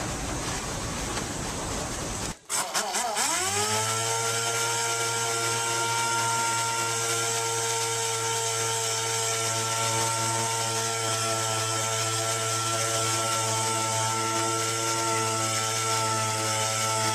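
After a couple of seconds of rushing background noise, a pneumatic dual-action sander starts up, rising in pitch as it spins up, then runs steadily with a hum and whine. It is working on a car door, sanding out paint runs and scratches.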